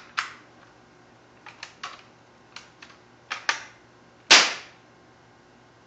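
Daisy 880 multi-pump air rifle being worked and test-fired empty: a series of light clicks and clacks from the action, then one loud, sharp pop of the shot about four seconds in. This is a dry test shot confirming that the freshly reassembled gun works.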